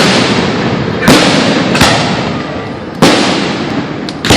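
Fireworks shells bursting: five loud bangs at uneven intervals of about a second, each trailing off in a long fading echo.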